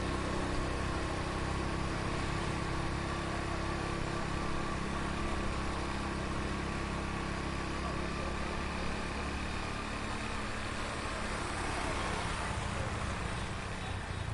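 Heavy street traffic heard close up: motor vehicle engines running and idling around the listener in a steady, dense din.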